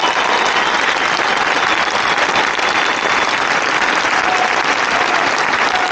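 Applause from a large crowd of tens of thousands, a dense, steady clapping that holds without a break.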